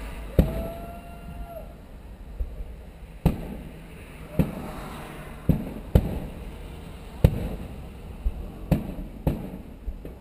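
Aerial fireworks shells bursting: a string of sharp booms, about ten spread unevenly over ten seconds.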